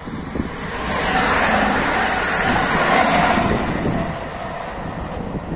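Electric multiple unit passenger train passing at speed: a loud rush of wheels on rail and air that swells about a second in, peaks as it goes by and fades after about four seconds.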